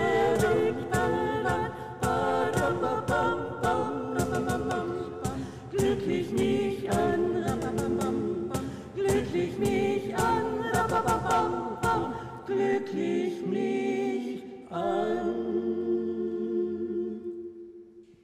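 Vocal music: several voices singing together, ending on a long held chord that fades out near the end.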